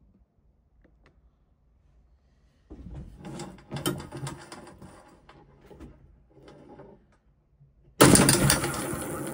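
Torsion-spring pulse engine prototype worked by hand: for a few seconds, metal clicks and rattles from the spring mechanism. About eight seconds in the spring is let go, and the roller chain, sprockets and impeller start with a sudden loud clatter that fades as they spin down.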